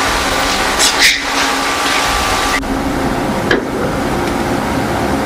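Loud steady hiss of a boosted recording with a short breathy, whisper-like sound about a second in, presented as an EVP voice saying "we don't". A sharp click comes in the middle.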